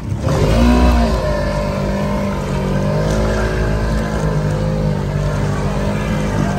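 An engine revs up and down briefly about half a second in, then runs hard at a steady pitch.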